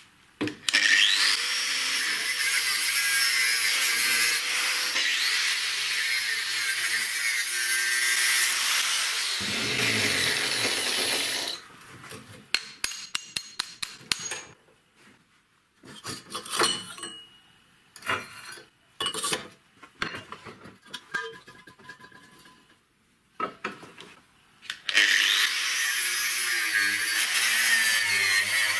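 Angle grinder cutting the steel of an old car shock absorber clamped in a vise: a loud, steady grinding that lasts about ten seconds. A quick run of sharp metal clicks and scattered clinks and knocks of metal parts being handled follow. The grinder cuts again near the end.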